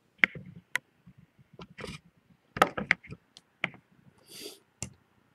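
Handling noise as a camera is moved and set down on a desk: a string of separate sharp clicks and knocks, with a short scrape near the end.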